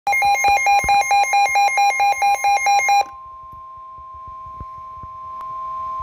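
A NOAA weather radio receiver sounding an alert: rapid electronic beeping, about five beeps a second, for about three seconds, then the steady single-pitch warning alarm tone of the NOAA Weather Radio broadcast, which grows a little louder near the end. It signals an incoming warning, here a special marine warning.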